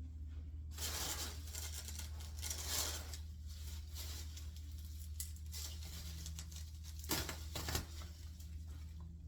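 Packing material being torn and crinkled by hand. There is a long stretch of tearing about a second in and a shorter, sharper tear near the end.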